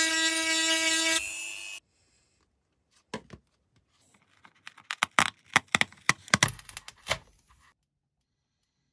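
A rotary tool's grinding stone whines steadily, drops in level and stops within the first two seconds. Then comes a scatter of sharp clicks and taps as the repaired black plastic panel is handled and turned in the hands.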